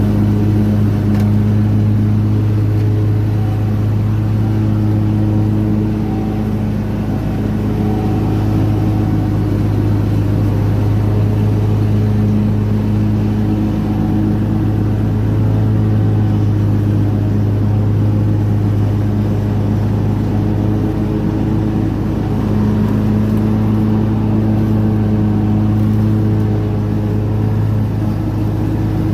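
Riding lawn mower engine running steadily at an even speed while mowing, a constant low drone that swells slightly now and then.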